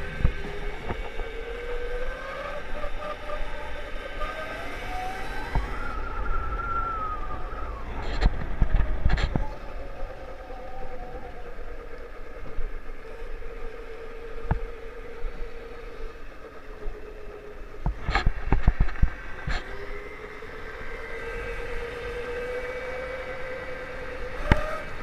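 Electric motor of a custom electric Puch Maxi moped whining as it rides, the pitch rising as it speeds up over the first few seconds, falling away, holding steady, then climbing again near the end. Low wind rumble on the microphone, with a few bursts of thumps from bumps in the road.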